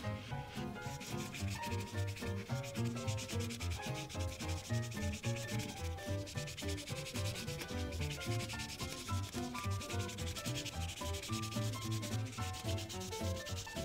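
Prismacolor marker tip rubbing on paper in rapid back-and-forth coloring strokes, over background music with a melody of short notes and a bass line.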